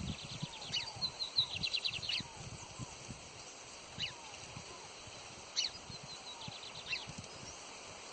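Wild birds calling: short high chirps throughout and a quick trill of rapid notes in the first couple of seconds, with faint falling whistles repeated by another bird. Soft low knocks sound underneath.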